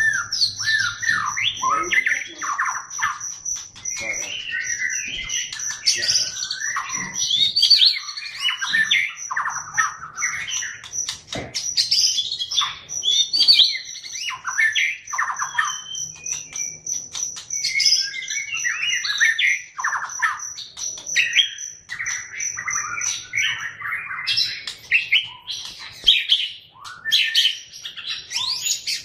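White-rumped shama of the Medan strain singing a long, varied run of whistled phrases and fast chattering trills. Behind it runs a steady, evenly pulsed high note that stops about four-fifths of the way through.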